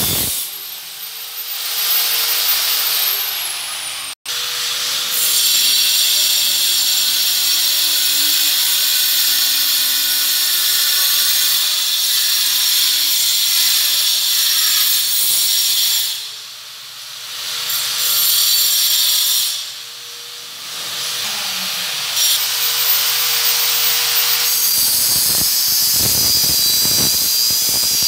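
Angle grinder with a cutting disc running and cutting ceramic tile: a loud hiss over a steady motor whine, easing off briefly twice in the second half.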